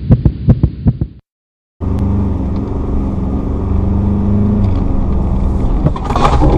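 A fast heartbeat sound effect, about five beats a second, stops about a second in, followed by a brief silence. Then comes cabin noise from the Ford Ranger Wildtrak's 2.0-litre bi-turbo diesel and its tyres as the pickup speeds up, growing louder near the end during a hard swerve.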